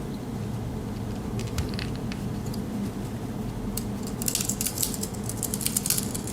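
Victorinox Swiss Army knife worked open in one hand: a few small clicks, then from about four seconds in a quick cluster of metallic clicks and rattles from the blade and tools, over a steady low hum.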